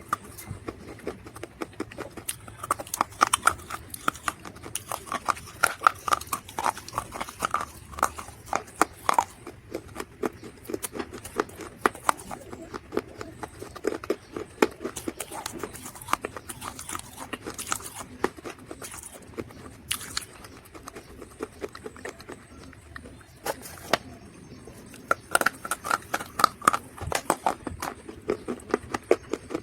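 Dried mud crunching and crackling in rapid, irregular crackles, busiest a few seconds in and again near the end.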